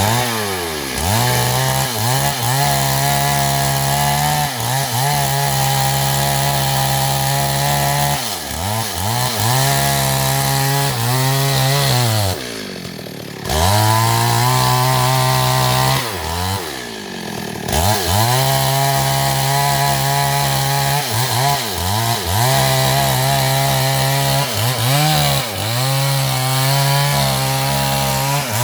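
Two-stroke chainsaw running at high revs as it cuts into a big tree, its engine note sagging under load and recovering. Twice it drops briefly to a lower, quieter note before revving up again.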